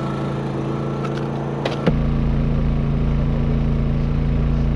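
A small engine hums steadily. A few sharp clicks are followed, about two seconds in, by a knock as a plastic cooler lid is shut, and a deeper low rumble joins the hum after it.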